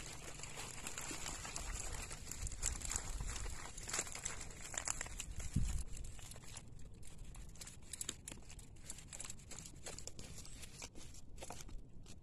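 Rustling and crackling of a cast net being shaken out over a plastic basket, with many small clicks as the netting and its weighted lines move and fish drop into the basket. There is a single thump about halfway through.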